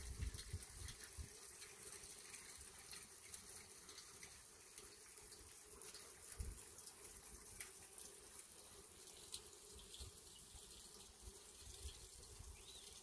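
Faint, steady rush of a flowing valley stream.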